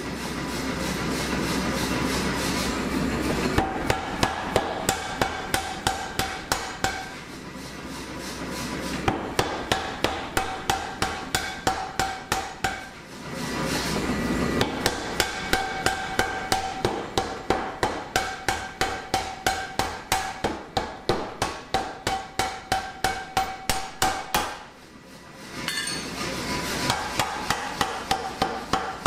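Massey pneumatic power hammer drawing out red-hot steel bar, striking in runs of rapid, even blows at about three a second with a metallic ring. Between runs the machine keeps running steadily. It is powered from a three-phase generator rather than its usual supply.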